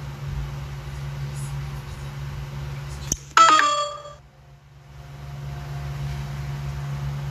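Steady low electrical hum, broken about three seconds in by a click and then a loud short electronic chime of a few falling notes, a phone-style low-battery alert refusing to power on.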